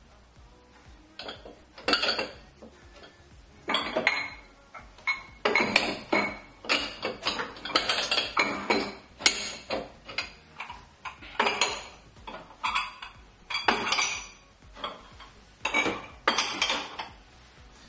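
Ceramic mugs and glasses being picked up and set down on a wooden cupboard shelf, giving an irregular string of clinks and knocks against each other and the shelf.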